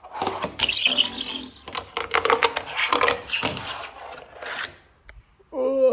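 Fingerboard rolling and clacking over wooden ramps: a quick run of sharp clicks and taps with rolling noise, which stops about five seconds in. Near the end a person's drawn-out vocal sound begins.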